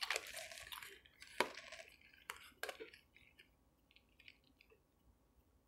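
Tarot cards handled over a table: a few light taps and rustles in the first three seconds, then faint clicks that die away.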